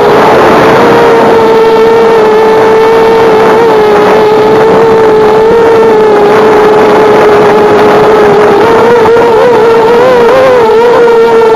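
Loud, steady electric motor and propeller whine of an FPV model aircraft in flight, picked up by its onboard camera. The pitch holds nearly constant at cruising throttle and wavers briefly near the end.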